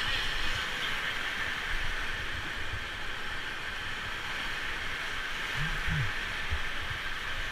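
Steady rush of river water around the raft, an even hiss with a low uneven rumble underneath.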